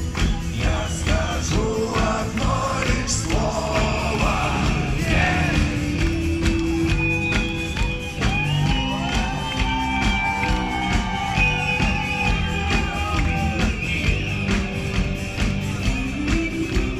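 A live rock band playing a song, with a steady drum beat, bass and melodic lines, heard as concert sound.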